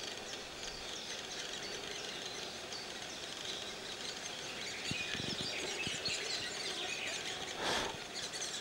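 Birds chirping: a dense patter of short, high calls over a steady outdoor background. A brief rush of noise comes a little before the end, and a few soft low knocks come around the middle.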